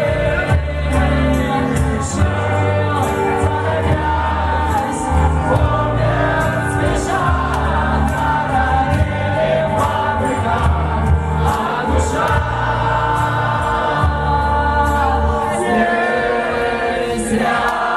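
Live band playing a song: singing over held bass notes that change every second or two, with regular cymbal hits.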